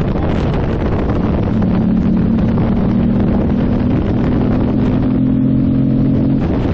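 Wind buffeting the microphone while riding an Aprilia Tuareg 660 at steady speed. The motorcycle's parallel-twin engine comes through as a steady drone from about a second in and drops back under the wind near the end.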